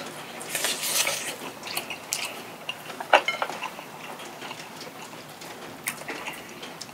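Close-miked biting and chewing of a crispy pan-fried mung bean and potato pancake (nokdu-jeon). There are scattered crunchy crackles and clicks, busiest in the first half, with the loudest crunch about three seconds in.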